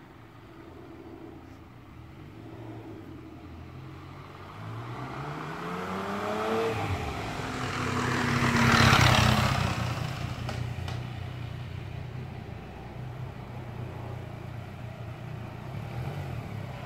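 A motor vehicle engine rising in pitch as it speeds up over a few seconds, then a loud rush of noise that peaks about nine seconds in and fades away, over a steady low engine hum.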